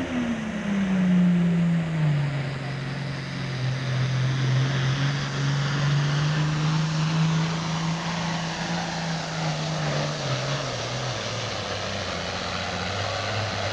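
Heavy super stock diesel pulling tractor running flat out against the pulling sled. Its engine note falls over the first two seconds and then holds steady, and it sags lower again near the end as the load pulls the engine down.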